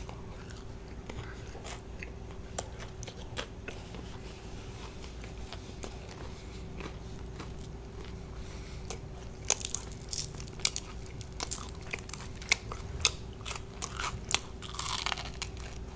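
Close-up biting, chewing and crunching of extra crispy fried chicken breading. The crunches are sparse at first and come thick and loud in the second half.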